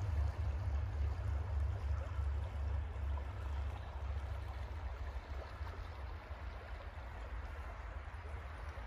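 River Dee flowing over a stony riffle: a steady, even rush of moving water. A fluctuating low rumble of wind on the microphone lies under it and eases slightly toward the end.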